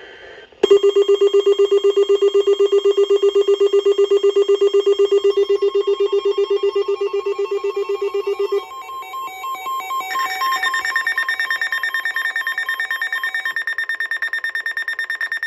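Weather-alert radio alarm sounding for a flood warning: a loud electronic tone pulsing many times a second, lower-pitched for about eight seconds, then switching to a higher pulsing tone that cuts off abruptly.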